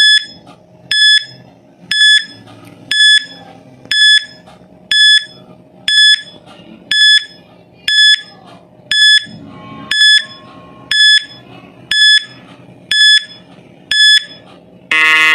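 Countdown timer beeping once a second, fifteen short high beeps, ending in a longer, louder buzzer tone that marks time up.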